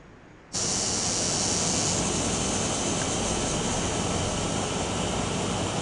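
The sound of a home camcorder clip of the evening sky being played back: a steady, loud rushing outdoor noise cuts in suddenly about half a second in.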